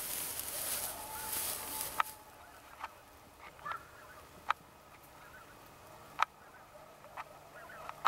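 Distant honking bird calls, short and separate, about one a second. A hiss is heard for the first two seconds and then stops.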